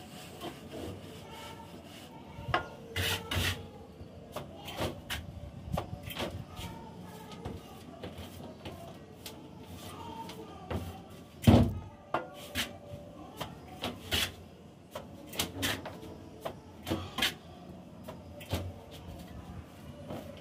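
Mason's trowel scraping and pressing cement plaster onto a concrete ceiling, in irregular strokes with sharp taps between them. One much louder knock comes a little past the middle.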